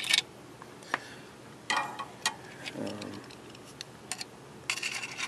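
Scattered clicks and light knocks from a Pitney Bowes W650 printer's stepper-motor controller board being handled and turned over. A quick flurry of small rattling ticks comes near the end.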